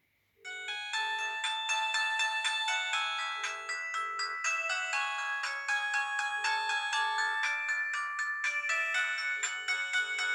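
JWD S300 mobile phone ringing with a chiming polyphonic melody ringtone for an incoming call, starting about half a second in. A low buzz comes in pairs of short pulses about every three seconds alongside the melody.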